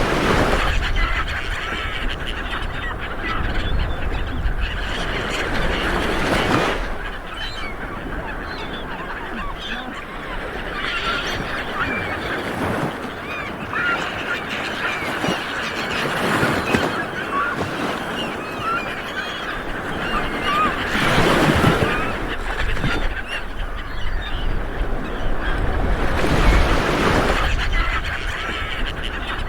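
Light waves breaking and washing up on a beach, swelling about every five seconds, with birds calling throughout.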